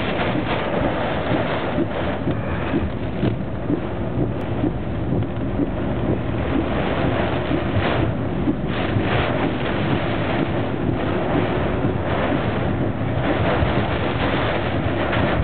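Hurricane eyewall wind and driving rain battering a moving car: a dense, steady rushing noise that surges and eases with the gusts, mixed with road noise.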